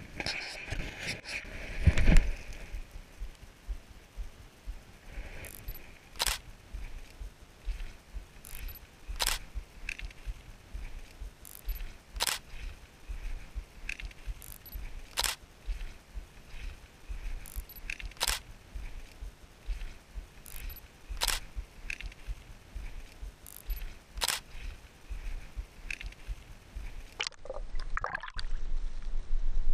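Camera shutter clicks about every three seconds, each with a softer click just before it, over a faint background hiss; a single thump about two seconds in.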